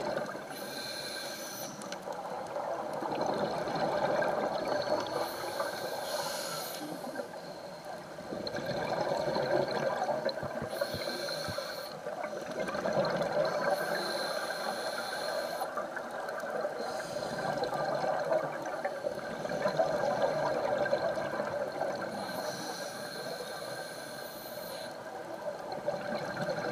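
Scuba diver breathing through a regulator underwater: a short hissing inhale roughly every five to six seconds, each followed by a longer bubbling rush of exhaled air.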